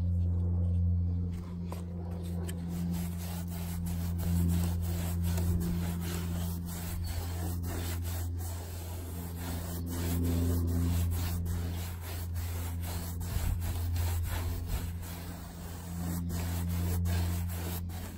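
Paintbrush scrubbing paint onto a rough-sawn wooden fence panel, a rubbing, scraping sound in repeated strokes with many small sharp ticks. A steady low hum runs underneath and is the loudest part.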